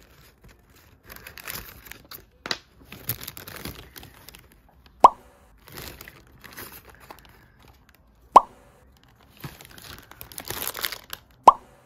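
Paper burger wrapper and takeout bag rustling and crinkling as fast food is unwrapped, broken by three short, loud plops about three seconds apart.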